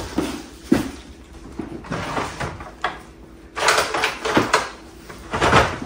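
Cardboard boxes and packing paper being handled: light knocks and thumps of boxes on a table, with bursts of paper rustling as a purse is packed into a box, busiest past the middle and again near the end.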